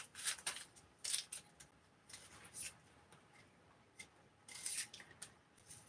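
Faint, crisp crackling and rustling of dry onion skin being peeled off small onions by hand, in short scattered bursts, with a knife cutting through an onion held in the hand near the end.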